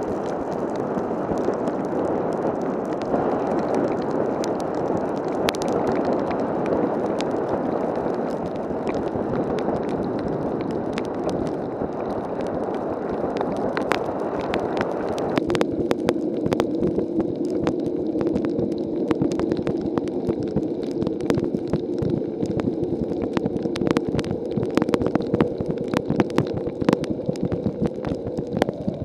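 Heavy rain pouring down, with many sharp drops tapping close by. About halfway through, the rush narrows into a steadier, lower run of water.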